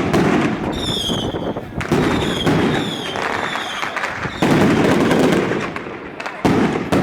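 Strings of firecrackers crackling in dense, loud runs that start afresh several times, with brief high-pitched squeals over them.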